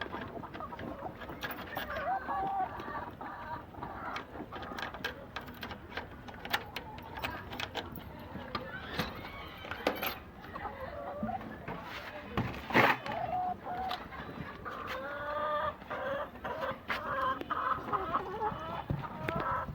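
A flock of laying hens clucking and squawking in many overlapping calls, with scattered clicks and knocks and one loud knock about 13 seconds in.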